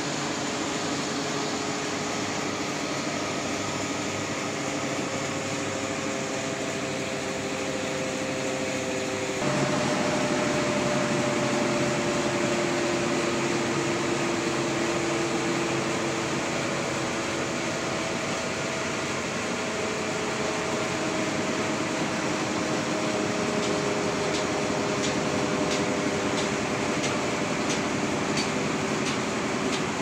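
Sawmill machinery running steadily: a continuous mechanical hum with several slowly drifting tones. About nine seconds in, the sound shifts abruptly and gets slightly louder, and faint regular ticking comes in near the end.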